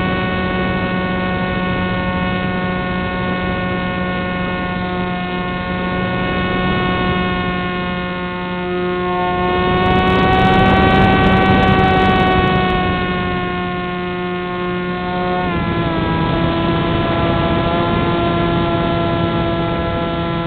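Tech One Pop Wing RC flying wing's motor and propeller, recorded by its onboard camera, running with a steady whine. A rush of air noise swells for a few seconds about halfway through during a dive. About three-quarters of the way in, the pitch steps down as the throttle is eased.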